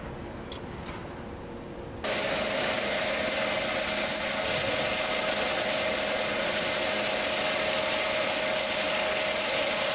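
Machinery running, with a steady hum and a constant tone over an even rushing noise. It comes in abruptly about two seconds in, replacing a quieter running sound.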